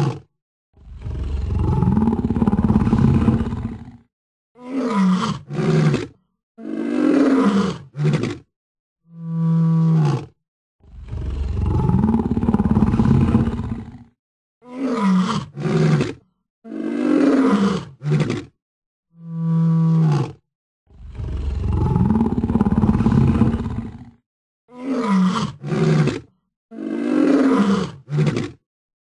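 Recorded animal roars and calls played in a loop: a short steady call, a long roar of about three seconds, then a few shorter calls that bend in pitch, the whole set repeating about every ten seconds.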